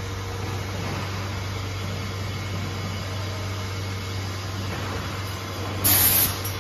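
Automatic pouch-packaging line with a multihead weigher running with a steady mechanical hum. About six seconds in, a short, loud hiss of air cuts in and stops.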